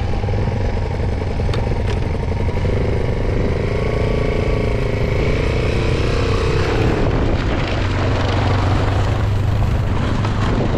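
Small engine of a fat-tyre mini bike running, its note rising as it pulls away across the ice, then a broader rush of wind noise once it is moving.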